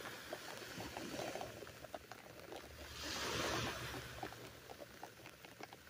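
Raindrops pattering on cloth draped over the camera: many small scattered taps over a low rumble, with a brief louder rush of hiss about three seconds in.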